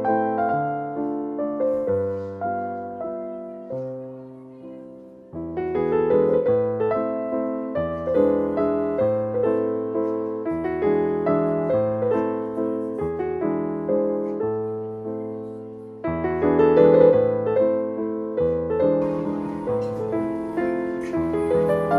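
Background piano music: a slow, gentle piece of ringing notes that fade away. It dips to a hush about five seconds in before the next phrase begins.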